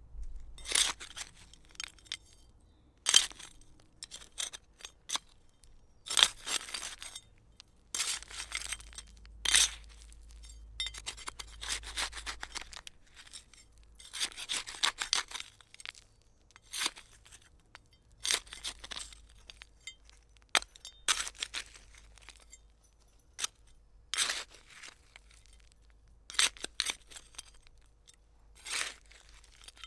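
Hand trowel digging into gritty soil: a series of short scraping, crunching strokes at an uneven pace, with brief pauses between them.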